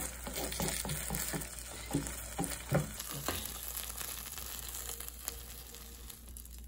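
A broccoli-and-Parmesan-crust pizza sizzling in a hot non-stick frying pan while a spatula scrapes underneath it. Short scrapes and knocks of the spatula against the pan come mostly in the first three seconds, as the pizza is slid out onto a plate.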